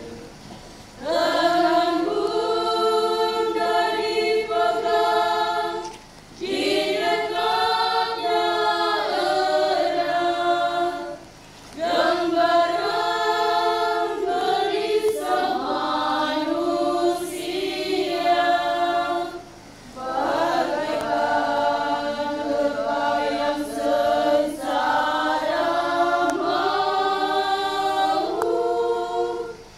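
Women's choir singing a hymn without accompaniment, in long phrases with brief pauses for breath between them.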